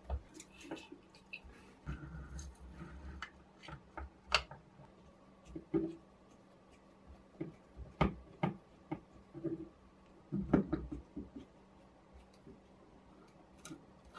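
Irregular small clicks and light knocks, with brief rustling, from a soldering iron's metal parts being handled by hand and a small screw being turned with a screwdriver.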